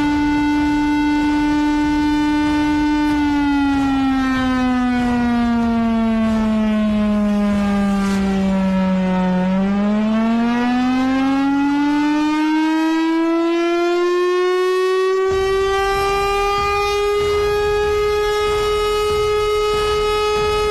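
A siren sounding one continuous wail. It holds a steady pitch at first, slowly falls lower until a bit under halfway through, then climbs steadily and holds at a higher pitch near the end.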